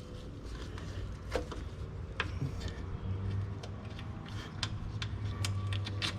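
Scattered light metallic clicks and clinks of hand work at a starter motor's terminal stud: the nut and washer being handled and the cable fitted. A steady low hum runs underneath, stronger from about halfway through.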